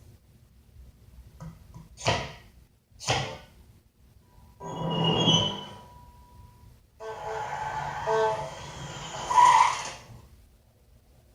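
A string of separate cartoon sound effects: two short swishy hits about a second apart, then a longer noisy sound with a held tone, then a busier rumbling sound with several tones that is loudest near its end.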